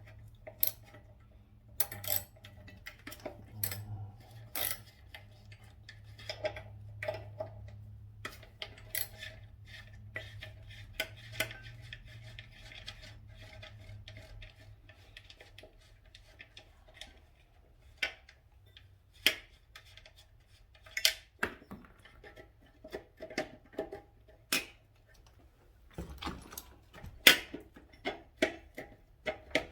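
Irregular metallic clinks and knocks of hand tools and loose metal parts being handled while chrome pieces are taken off a motorcycle. The knocks come thicker near the end, and a low steady hum fades out about halfway through.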